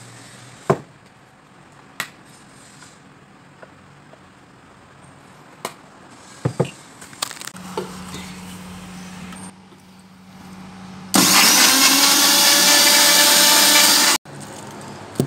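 Electric mixer grinder with a steel jar blending a liquid mix for about three seconds near the end, then cutting off suddenly. Before it, a few sharp knocks and clicks.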